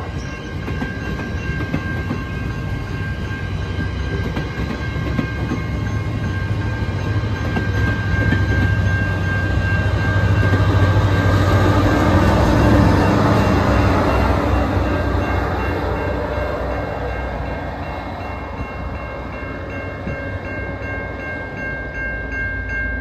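GO Transit bilevel passenger coaches rolling past close by, wheels clacking over the rail joints, building to the louder low rumble of the diesel locomotive pushing at the rear about halfway through, then fading away. A steady high-pitched tone runs under it.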